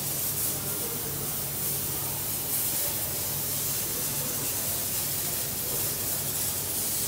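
Steady factory machinery noise: an even high-pitched hiss over a low, constant hum.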